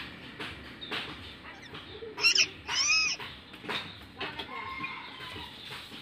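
Indian ringneck parakeets calling: two short, loud calls about two seconds in, then a softer call about five seconds in.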